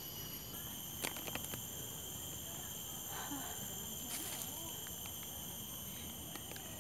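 Steady high-pitched drone of insects, several even tones held together, with a few short clicks or knocks about a second in and again around four seconds in.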